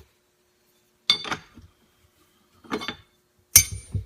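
Three sharp metallic clinks of tools and fork parts being handled, about a second in, near the three-second mark and just before the end, the last the loudest.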